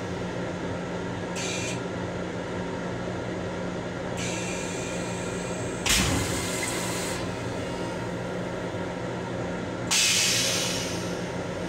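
Steady hum of an M7 commuter railcar heard from inside its restroom, with several bursts of hissing over it. One starts with a thump about six seconds in, and another sharp, loud one comes about ten seconds in and fades away.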